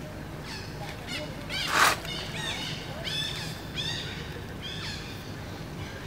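A string of short, high chirping animal calls repeated every half-second or so, with one louder, harsh call about two seconds in.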